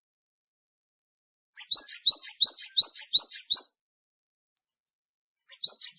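Cinereous tit (gelatik batu) singing: a loud run of repeated two-note whistled phrases, high then lower, about four a second. The run starts after a pause of about a second and a half and lasts about two seconds. A second run begins near the end.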